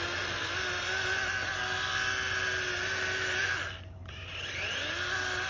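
Electric chainsaw motor running at full speed with a steady whine. About three and a half seconds in it winds down, then spins back up about half a second later and runs again.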